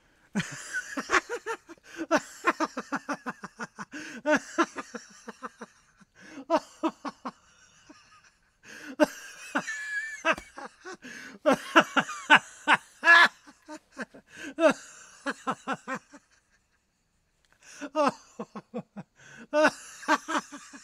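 A man laughing hard in long bouts of rapid ha-ha pulses, with short pauses between the bouts.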